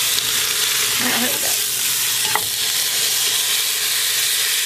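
Beef shanks searing in hot olive oil in a pot on high heat: a steady, loud sizzle, with one light click about two and a half seconds in.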